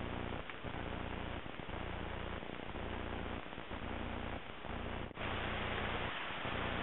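Steady hiss with a low electrical hum, the noise floor of the recording, with brief dips about once a second. About five seconds in, the hiss changes abruptly and becomes brighter.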